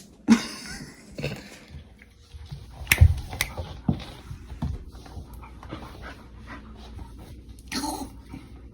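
A dog panting and breathing hard, with a couple of sharp knocks about three seconds in.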